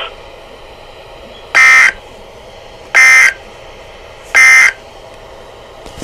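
Weather alert radio's speaker sounding the NOAA Weather Radio SAME end-of-message code: three short buzzy bursts of digital data tones, about a second and a half apart, marking the end of the special marine warning.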